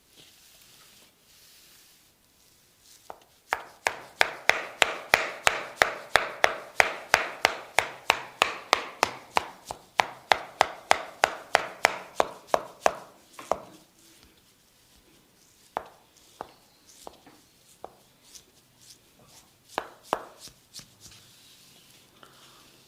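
Percussive massage strikes on the body, a fast even run of sharp hits at about four a second for some ten seconds, then a few scattered single hits.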